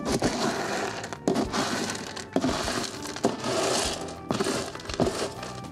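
Cat litter being scooped and stirred in a litter box. It makes a loud gritty rustling and scraping, with a sharp stroke about once a second.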